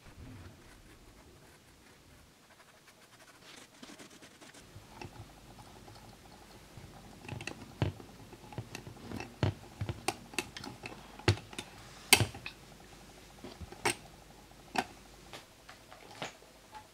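Irregular light clicks and taps from hands handling a metal tufting gun while threading yarn through its needle, coming thickest in the middle and thinning out near the end.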